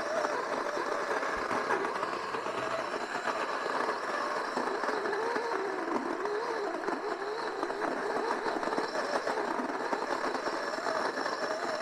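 Old electric coffee grinder running continuously, grinding dried natto beans into powder. Its motor hum wavers up and down in pitch over a steady grinding noise.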